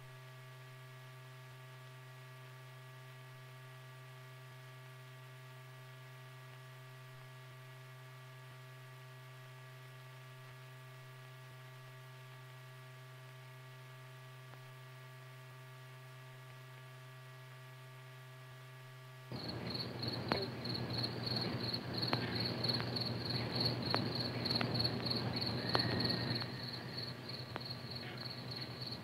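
A faint steady electrical hum, then about two-thirds of the way in crickets start chirping in a fast, high trill over scattered clicks.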